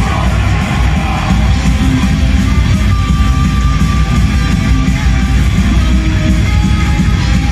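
Black metal band playing live at full volume, with distorted electric guitars over a heavy, dense low end, heard from within the crowd.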